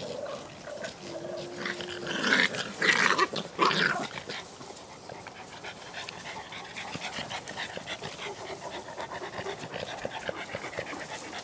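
A puppy and an adult dog play-fighting: a brief whine, then a few loud growls between about two and four seconds in, followed by steady, rapid panting.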